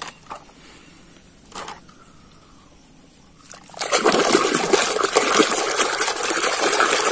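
Hands swishing and scrubbing in a basin of muddy water, washing a toy. A few faint clicks come first, then a loud, steady sloshing and splashing starts about four seconds in.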